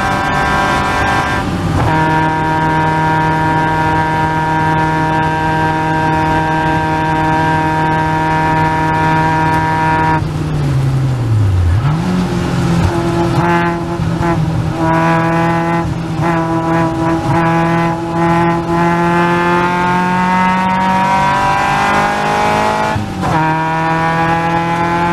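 Caterham Seven's 2.3-litre Ford Duratec four-cylinder engine at racing speed, heard on board: a steady high engine note that falls away sharply about ten seconds in, jumps back up and then climbs again, with brief dips in the revs near the start and near the end.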